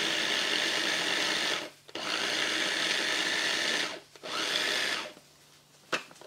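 Small electric food processor's motor running three times with short pauses between, pulse-grinding frozen pineapple chunks. A single sharp click near the end.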